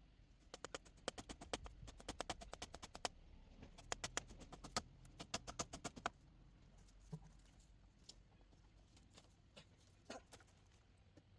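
A quick run of sharp taps or clicks, several a second, for about six seconds, thinning to a few scattered taps after that.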